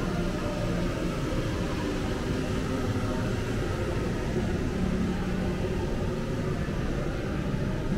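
Steady city street ambience in light rain: an even low rumble and hiss with no distinct events.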